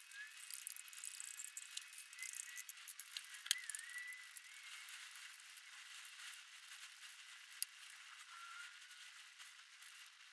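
Faint clicking and rattling as paint is flicked and dripped from a stick onto a canvas laid over cardboard. Two sharp taps come about three and a half and seven and a half seconds in, and there are a few faint short squeaks.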